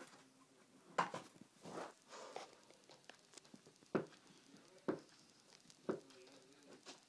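A basketball dribbled on a carpeted floor: several dull bounces, about a second apart.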